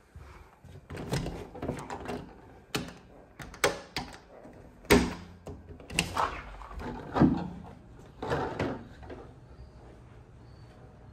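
A balcony door with blinds hung on it being unlatched and opened: a string of clicks, knocks and rattles, the loudest knock about five seconds in.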